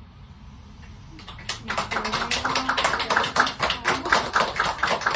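A small audience applauding, starting about a second in after a short lull at the end of a tune, the separate claps coming thick and fast.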